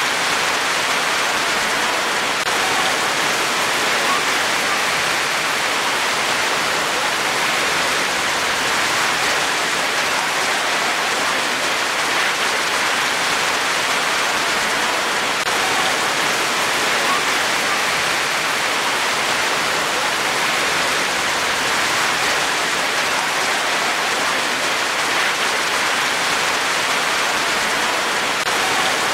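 Steady rain falling, an even, unbroken hiss that neither swells nor fades.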